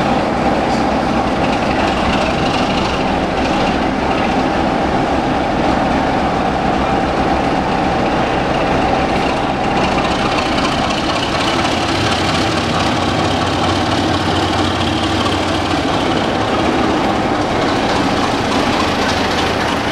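Class 33 diesel locomotive 33002 'Sea King', its Sulzer eight-cylinder engine running steadily as it rolls slowly along the platform and passes close by hauling coaches. The low engine note grows stronger in the second half as the locomotive comes alongside.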